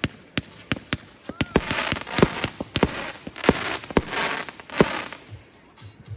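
Flamingo consumer firework going off: a rapid, irregular string of sharp bangs with stretches of crackling between them, and a brief whistle about a second and a half in.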